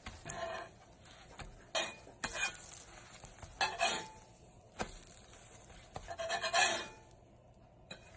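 Metal slotted spatula scraping and sliding across a cast iron skillet in several short bursts as food is folded and flipped, with a light sizzle underneath. There is a sharp clink a little before five seconds in.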